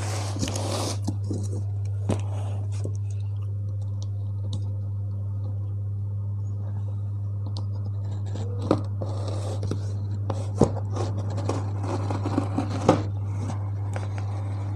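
A knife blade scraping and cutting through the packing tape on a cardboard box, with a few sharp clicks, mostly in the second half, over a steady low hum.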